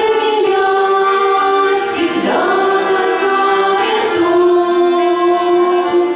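Amateur folk vocal ensemble singing long held notes in harmony. The voices move to a new chord about two seconds in and again about four seconds in.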